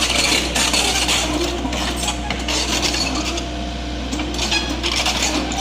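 Komatsu PC78UU excavator running with a steady low engine drone while steel parts clatter and scrape, metal on metal, as the machine works itself up onto a truck bed.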